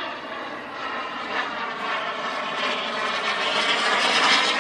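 Small gas-turbine engine of a radio-controlled F-100 Super Sabre model jet in flight: a steady whine with a rushing noise, growing louder as the jet comes closer.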